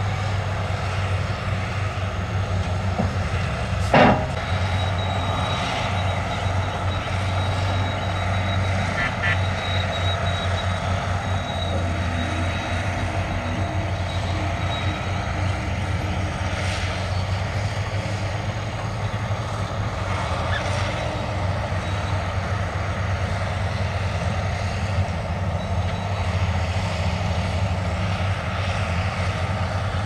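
Diesel dump truck engine running steadily while the raised bed tips out a load of rock and soil, with one sharp bang about four seconds in.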